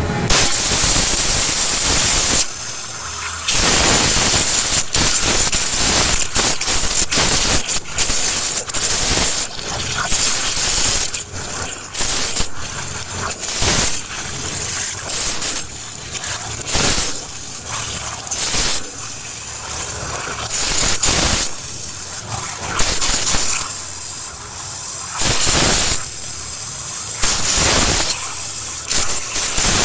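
Microwaterjet abrasive waterjet cutting a thin stainless steel sheet: a loud, high hiss of the jet. It jumps irregularly between louder and softer stretches every second or two.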